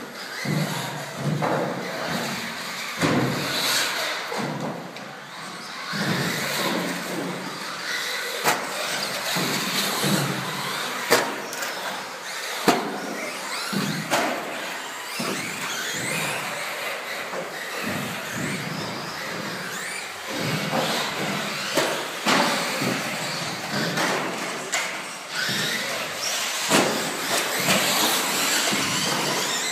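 Radio-controlled off-road buggies racing on an indoor track: motors whining up and down in pitch as they accelerate and brake. Several sharp knocks, around a third of the way in, come from cars landing jumps or hitting each other or the track edges.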